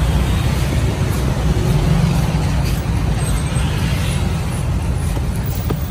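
Steady low rumble of street traffic, with a few faint chops of a large coconut knife shaving the husk off a young coconut.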